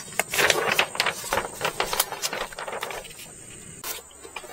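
Sheets of paper rustling and crackling as a printed user manual and leaflets are handled and flipped, a quick run of crackles over the first three seconds that then eases off. A light knock comes near the end.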